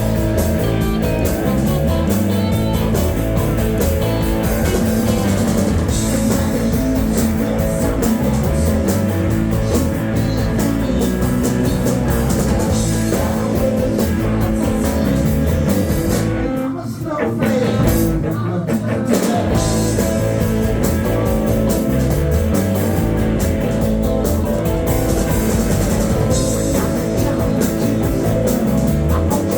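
Rock band playing live, with electric guitars and a drum kit over sustained held notes. The sound thins out briefly about seventeen seconds in, then comes back in full.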